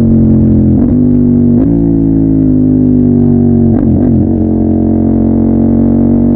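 CFMOTO 800MT's parallel-twin engine idling steadily through a Yoshimura full-system exhaust. Its pitch wavers briefly a few times.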